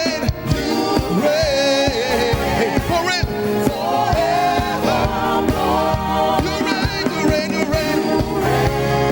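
Live gospel praise music: lead and backing singers with a band, steady drum beat and held keyboard chords.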